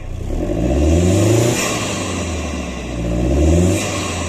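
Turbo-diesel 4x4 engine accelerating twice, its pitch rising on each pull and falling back between them, heard through a stainless steel snorkel air intake. A high hiss of air swells at the top of each pull.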